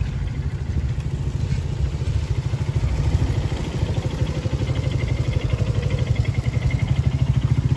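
Small motorcycle engines running at low revs as the bikes climb slowly past close by, with a rapid low exhaust pulse that grows louder near the end.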